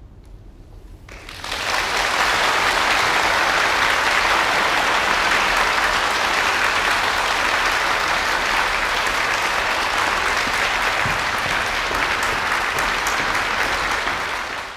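Audience applause, breaking out about a second and a half in after a brief quiet and then holding steady.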